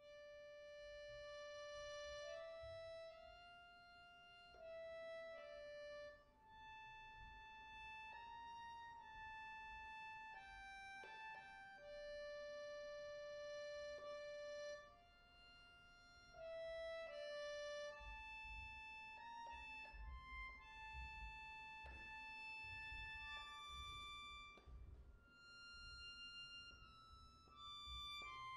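Bayan (chromatic button accordion) playing a slow melody of long held notes over sustained accompanying tones, starting out of silence.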